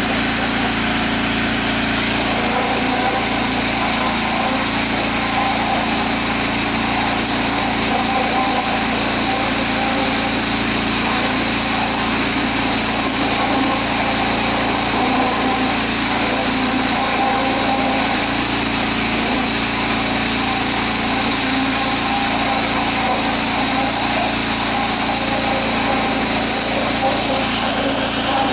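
Gas-engine pressure washer running steadily while its jet blasts mud and soil out of a trench, a constant engine drone with spray hiss over it.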